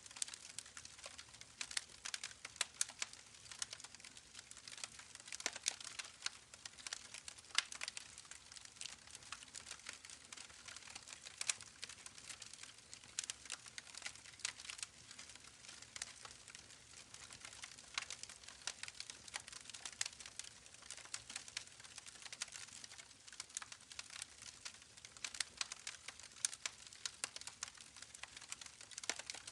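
Campfire crackling: irregular sharp pops and snaps, several a second, over a soft steady hiss.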